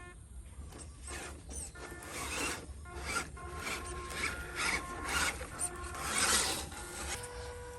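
Repeated rasping, scraping noises, swelling and fading many times in a row, as a small RC off-road truck's tyres grind over dirt and rocks. A steady hum starts near the end.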